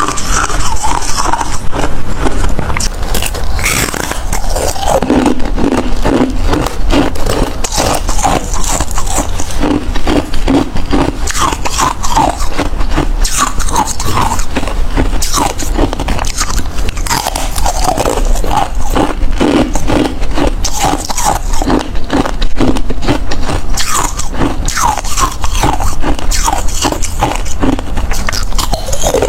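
Hard ice being bitten and chewed close to the microphone: continuous crunching and cracking without a break.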